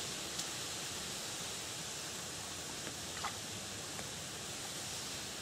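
Steady rustling hiss of wind through dry reeds, with a few faint ticks and a brief chirp a little past the middle.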